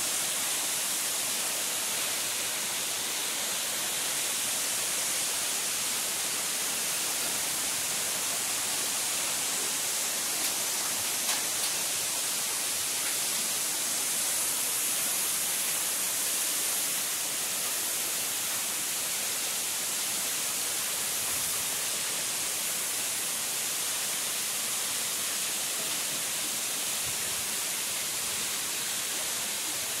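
Waterfall's falling water rushing as a steady, even hiss, with a couple of faint clicks near the middle.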